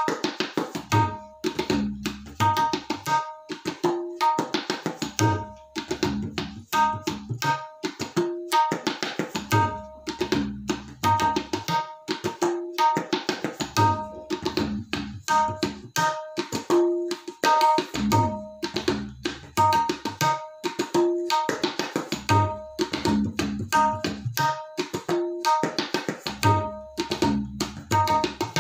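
Tabla played solo in a steady theka: crisp ringing strokes on the dayan throughout, with deep bass strokes of the bayan in one half of each cycle of about four seconds and dropping out in the other half.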